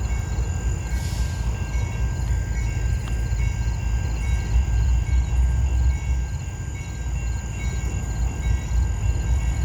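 Diesel locomotives of a freight train rumbling low and steady as the train departs, with faint high chirps repeating over it.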